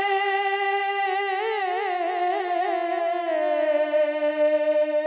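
A man singing a naat unaccompanied, holding one long note that wavers in an ornament about a second and a half in and slowly sinks in pitch.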